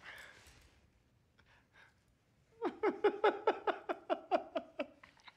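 A man's breathy exhale, then, about two and a half seconds in, a quick run of rhythmic, pitched laughter at about five or six 'ha's a second, fading near the end.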